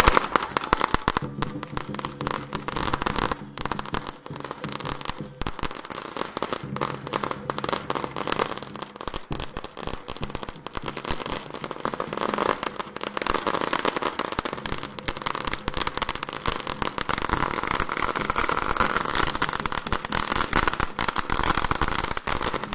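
A long string of firecrackers going off in a rapid, continuous crackle of small bangs.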